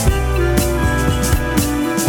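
Background music with a steady drum beat and pitched instrument parts.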